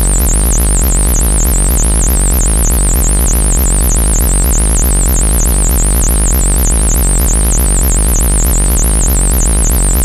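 Synthesized 'alien' buzzer sound effect: a continuous harsh electronic buzz, with a high whistling tone warbling rapidly up and down over a loud pulsing low hum.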